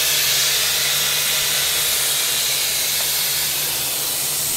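Steady hiss with a low even hum underneath, unchanging throughout: the continuous noise of running machinery in a shop.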